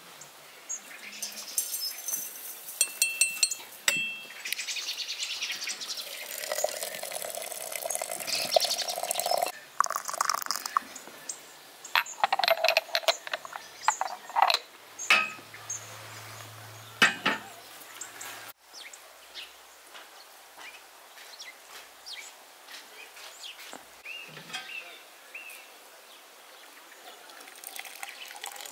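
Light clinks and knocks of a porcelain teapot, its lid and a cut-glass dish of loose black tea being handled at a brass samovar.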